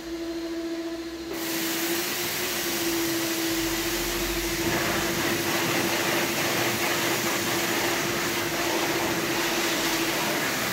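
Car-wash pressure washer running with a steady hum. The hiss of the high-pressure water jet starts suddenly about a second in and carries on as the jet blasts against a plastic tool case.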